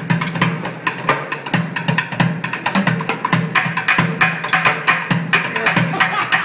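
Bucket drumming: two players beating upturned plastic buckets with drumsticks in a fast, dense rhythm of stick hits over a recurring deep thud.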